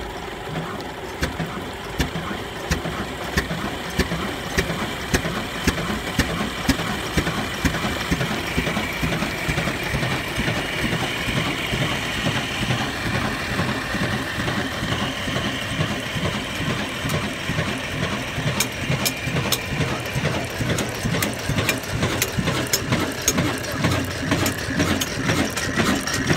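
A 22 HP old stationary diesel engine running steadily, with a regular knocking beat and the metallic clatter of its exposed valve gear and pump linkages.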